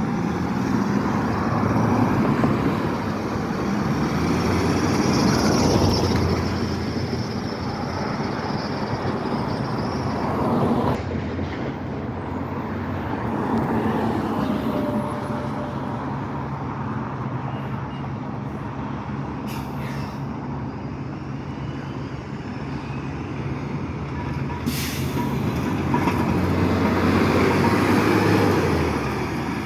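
City transit bus's diesel engine running and passing close, over street traffic, with a steady low engine hum through the second half. A short hiss of air brakes about three-quarters of the way through.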